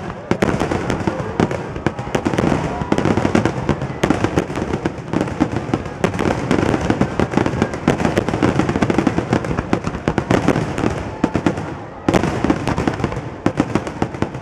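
Aerial firework shells bursting in a dense barrage, with many bangs overlapping in quick succession. The barrage dips briefly about twelve seconds in, then picks up again.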